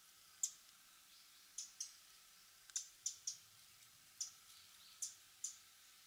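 Eurasian wren giving short, sharp, high clicking call notes, about nine of them at irregular intervals, some in quick pairs or runs of three.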